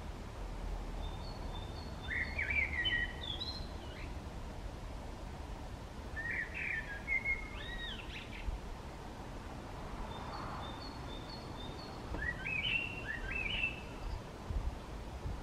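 Male common blackbird singing: three fluty, warbling phrases a few seconds apart, over a steady low background rumble.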